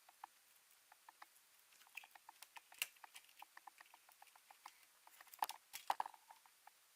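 Irregular small clicks and taps of laptop parts being handled during disassembly, with a few louder knocks a little after halfway through.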